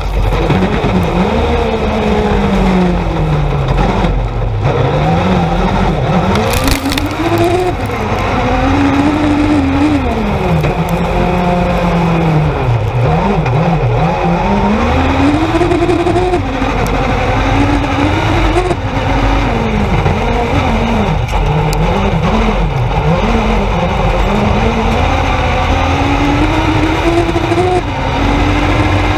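Dirt-track race car engine heard from inside the cockpit, revving up and falling back again and again as the driver accelerates and lifts through the corners, with sharp drops in pitch at gear changes.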